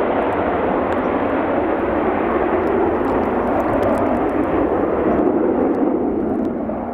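Steady jet noise from a pair of Panavia Tornados in close formation, their twin Turbo-Union RB199 turbofans heard from behind as the jets fly away on a low approach. The sound starts to fade near the end.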